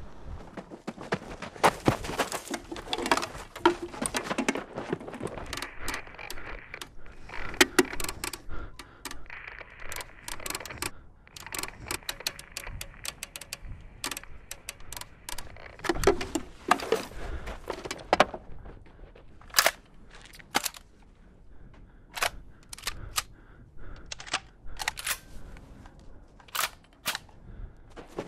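Battle gunfire: rifle and machine-gun shots cracking irregularly, dense and overlapping for the first ten seconds or so. From about 19 seconds in, the shots come as single, spaced cracks.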